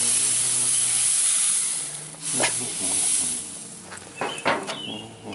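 Aerosol can of Weber grill spray (non-stick cooking oil spray) hissing onto grill grates in one long burst and then a second, shorter one. A few light knocks follow near the end as the can is set down.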